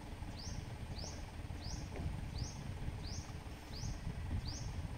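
A bird calling from the riverbank, repeating the same short upswept note about three times every two seconds, over a low steady rumble.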